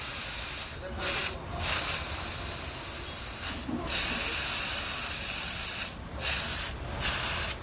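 Compressed air hissing loudly and steadily from an air line at a tyre-fitting station, cut by several brief breaks. It is typical of a tyre being inflated on its rim or of a pneumatic tyre-changer working.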